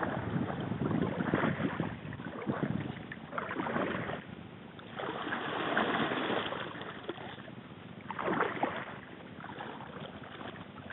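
Water sloshing and lapping against a kayak hull, with wind buffeting the microphone, rising and falling in several uneven swells.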